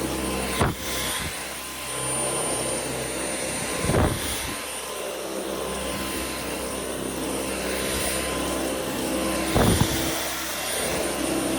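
Dyson Outsize cordless stick vacuum running with a steady high-pitched whine over its motor and airflow noise. Three brief knocks sound about half a second, four seconds and nearly ten seconds in.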